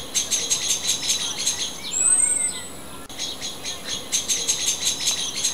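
A bird singing outdoors: a fast run of short, high repeated notes lasting under two seconds, a thin high falling whistle, then a second run of the same notes.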